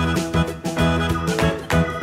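Background music: an upbeat instrumental with keyboard-like chords changing in a steady rhythm.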